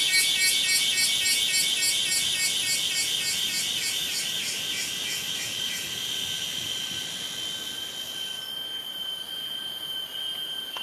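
Rainforest insects calling: a loud, high, pulsing chorus at about four to five pulses a second that fades away about halfway through, leaving a steady high-pitched whine.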